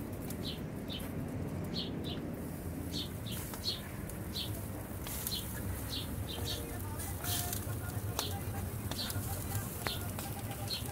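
A small bird chirping over and over, short high chirps often in pairs about once a second, over a steady low background hum.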